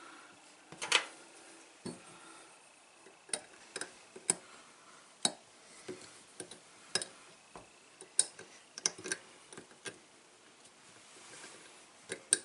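Irregular small clicks and taps of metal and plastic faucet parts as the handle of a Delta kitchen faucet is fitted back on.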